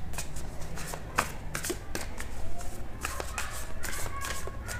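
A deck of tarot cards being shuffled by hand: the cards rub and click against each other in an irregular run of quick clicks.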